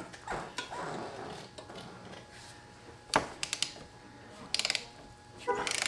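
Ratcheting torque wrench on a long extension clicking in short runs as it spins down and tightens a motorcycle's spin-on oil filter.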